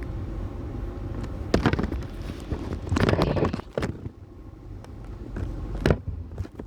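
A few sharp knocks and bumps over a steady low rumble, loudest about a second and a half in and around three seconds in.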